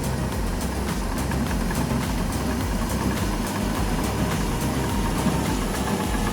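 Heavy diesel engine of a bulldozer running steadily with a low rumble.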